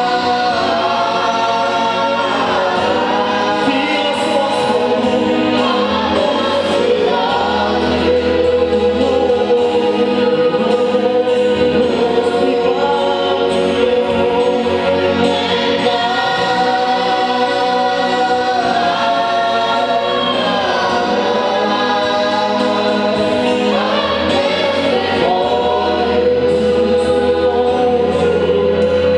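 Congregational gospel choir singing a slow worship song in long held notes, over a sustained low accompaniment.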